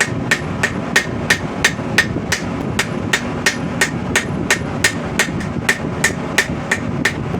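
Hand hammer striking hot steel on an anvil at a steady pace of about three blows a second, each blow with a short metallic ring; the blows stop shortly before the end. The smith is forging a rebar sword blade, shaping its profile and thinning the bevels.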